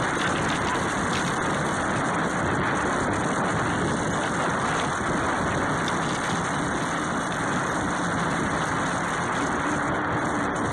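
Steady wind rush over a bike-mounted camera's microphone while riding along a paved trail, mixed with the bicycle's tyre noise.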